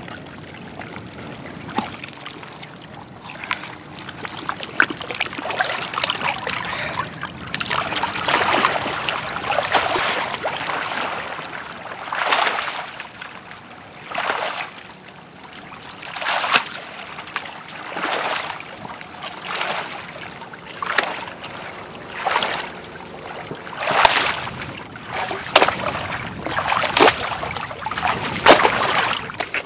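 Wet mud and shallow water sloshing and squelching as a person works through them. In the second half it becomes a regular series of splashy strokes about every second and a half.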